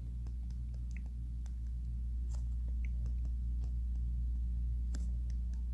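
Faint scattered clicks and taps of a stylus on a tablet screen while handwriting, over a steady low hum.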